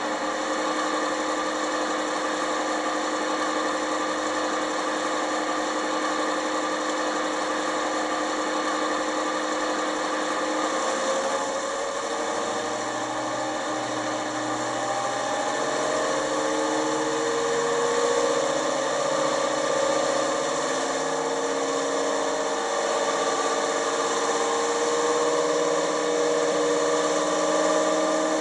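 Model locomotive's ESU LokSound DCC decoder playing a Napier Deltic diesel engine sound through its small speaker: the engine runs steadily, then from about eleven seconds in revs up to a higher pitch and keeps running there, as the stationary model is throttled up.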